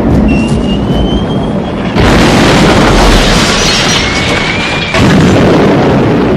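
Aerial bombardment sound effect: a continuous rumble of explosions, with fresh blasts striking about two seconds in and again about five seconds in. A thin high whistle, rising slightly in pitch, sounds before each blast.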